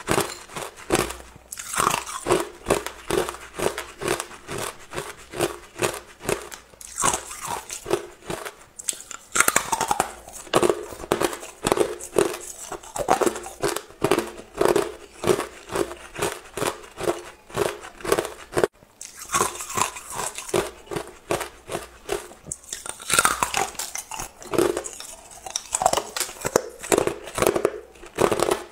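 A person chewing hard clear ice, the pieces crunching and cracking between the teeth about two to three times a second, with a few louder cracks as fresh pieces break.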